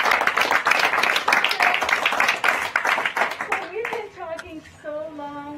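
Group applause, many hands clapping, dying away after about three and a half seconds as a woman begins speaking.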